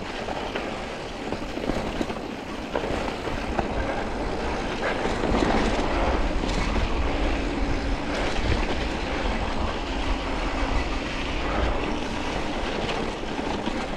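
Mountain bike rolling fast down a dry, rocky dirt trail: knobby tyres crunching over gravel and the bike rattling over the bumps, with a steady low rumble underneath.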